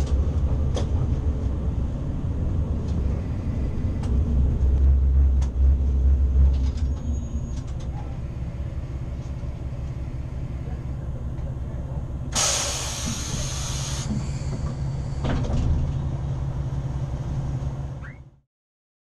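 Diesel railcar easing to a stop: a low, evenly pulsing rumble with a few clicks, heaviest for the first six seconds and then settling to a steady idle. About twelve seconds in comes a loud burst of compressed-air hiss lasting under two seconds, then a weaker, shorter hiss a few seconds later; the sound fades out near the end.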